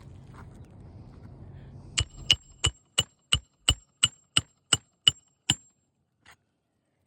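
Hammer striking about eleven times in an even rhythm, about three blows a second, each blow with a short metallic ring.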